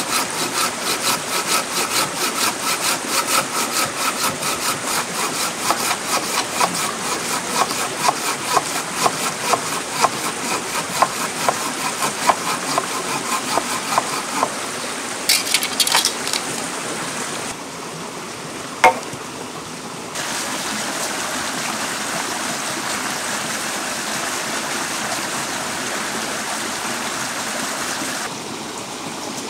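Rhythmic strokes at about three a second, like sawing or rubbing, for about the first fifteen seconds, with two sharp clicks after. Then a steady rushing noise of running water.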